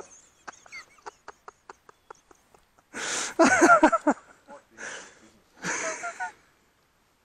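Men laughing in three bursts, starting about three seconds in, after a run of faint, evenly spaced clicks.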